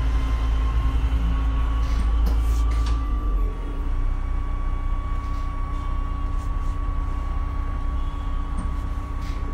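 MAN Lion's City Hybrid city bus running, heard from the front door: a steady high whine over a low rumble. The whine rises slightly over the first few seconds, and the rumble drops about three and a half seconds in, with a few short rattles.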